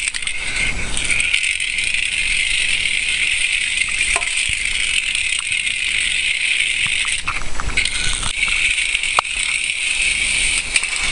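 Small electric motor and plastic gearbox of an OWI salt-water fuel cell toy car running under power from its magnesium salt-water cell: a steady, high-pitched whir as the car drives across a hard floor, with a couple of sharp clicks.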